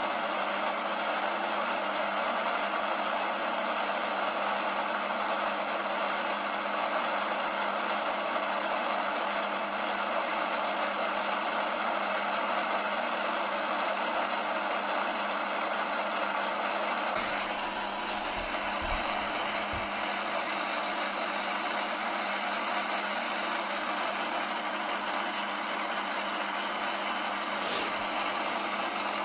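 Steady hiss of static from an EVP (electronic voice phenomenon) device switched on to listen for spirit voices. A few faint low thumps come about two-thirds of the way through.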